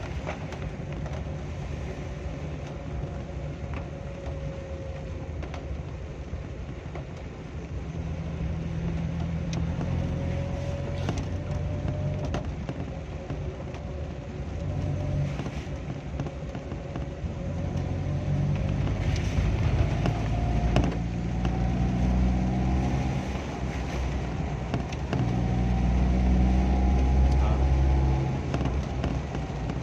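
Engine and road noise of a motor vehicle heard from inside the cabin on a wet road. A low rumble swells and eases as the engine works, growing loudest near the end, while a faint whine rises slowly through the second half. A few light knocks come from bumps in the road.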